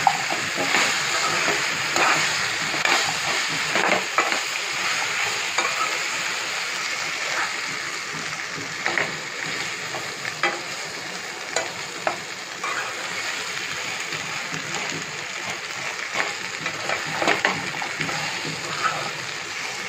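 Colocasia (taro) pieces sizzling in hot oil with spices in a non-stick pan, stirred with a slotted spatula that scrapes and ticks against the pan now and then.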